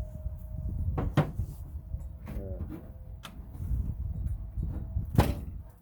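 Sheet metal and parts of an old gas furnace clanking and scraping as it is pulled apart by hand, with a few sharp metal knocks, the loudest about five seconds in.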